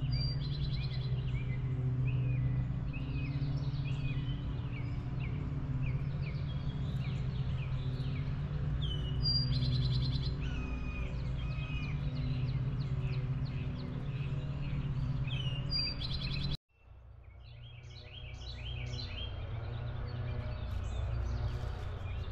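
Wild birds chirping and singing in many short, repeated whistled phrases over a steady low outdoor rumble. About two-thirds of the way through, the sound cuts out abruptly for a moment, then fades back in.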